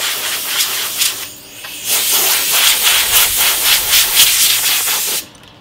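Compressed-air blow gun from an air compressor blasting dust off a PC case's mesh dust filter: a loud hiss in two blasts, a short break about a second and a half in, then a longer blast that cuts off suddenly just after five seconds.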